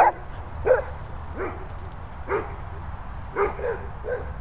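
A dog barking repeatedly, about seven short barks at irregular intervals, the kind of alert barking at a supposed intruder that the handler dismisses as nobody being there.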